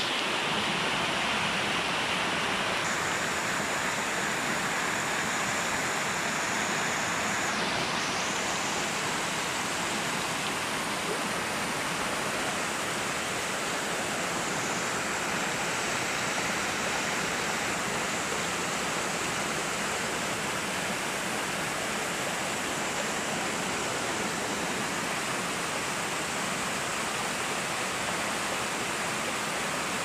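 Small mountain waterfall cascading over rocks: a steady rush of falling, splashing water.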